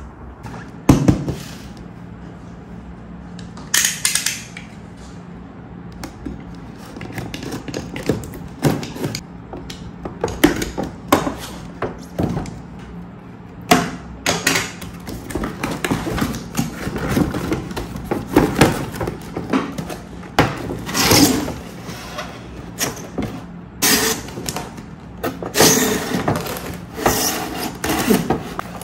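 Hands handling plastic toy parts and packaging: irregular clicks, knocks and short bursts of rustling, with one sharp knock about a second in.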